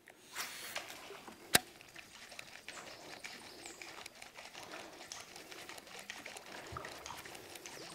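Faint bird calls over quiet outdoor ambience, with small scattered ticks and one sharp click about a second and a half in.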